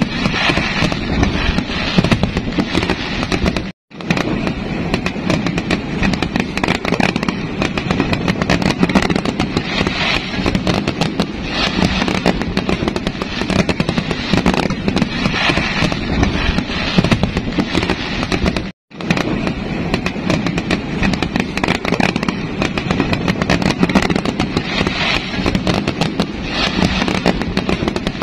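Fireworks going off thick and fast, a dense, unbroken crackle of many small bursts. Two brief gaps of silence break it, one a few seconds in and one in the middle.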